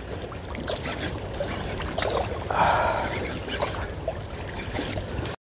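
Water splashing and lapping close to the microphone, with a louder splash about two and a half seconds in.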